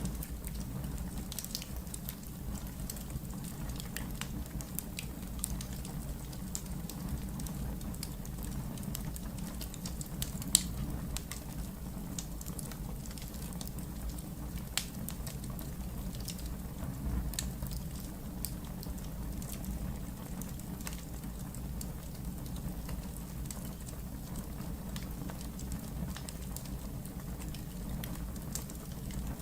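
Wood fire in a fireplace crackling: scattered sharp pops and snaps over a steady low rumble of the flames, with one louder pop about ten seconds in.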